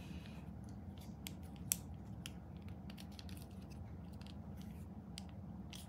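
Faint, scattered plastic clicks and rubbing as the parts of a small Transformers Legacy Evolution Core Class Sludge action figure are twisted and shifted by hand during its transformation, one click louder just under two seconds in, over a low steady background hum.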